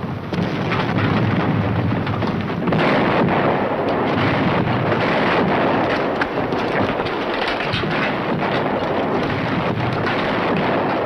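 Steady heavy rain with a low thunder-like rumble, a dense rushing noise that grows brighter and slightly louder about three seconds in.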